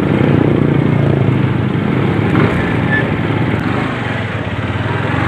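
Motorcycle engine running steadily while riding, easing slightly about four seconds in.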